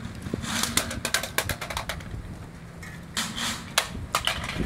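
A Presa Dane (Presa Canario × Great Dane cross) crunching a raw turkey neck, the bones cracking in quick runs of sharp clicks. There are two bouts of chewing, with a short pause near the middle.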